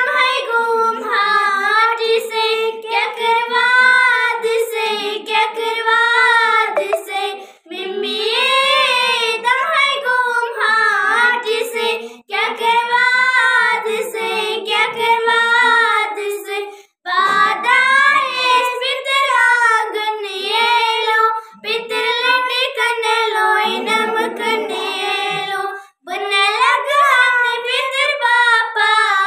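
Two young schoolgirls singing a song together, unaccompanied, in long melodic phrases with brief breaths between them.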